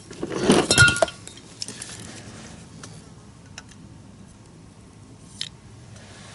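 Metal tools and small parts clinking and clattering, a dense burst in the first second, then occasional light clicks and ticks.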